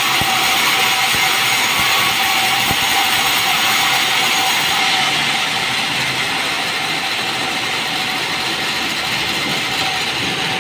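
Sawmill band saw running and ripping a merbau hardwood board: a steady, loud hiss of the blade cutting, with a constant tone underneath. It eases a little about halfway through.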